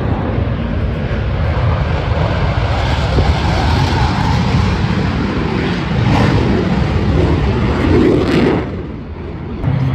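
Aircraft engine noise from a passing aircraft, loud and continuous, swelling about eight seconds in and then falling away sharply.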